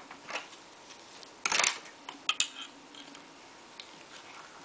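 Plastic clicks and clacks as the ABS plastic scabbard of a rubber-bladed airsoft bayonet and its belt clip are handled. The loudest is a short clack about one and a half seconds in, with a couple of sharper clicks just after and a few faint ticks later.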